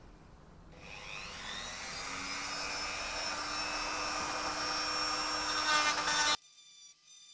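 Handheld rotary tool spinning up about a second in to a steady high whine while cutting away part of a plastic RC car camera mount, growing louder, then cutting off abruptly about six seconds in.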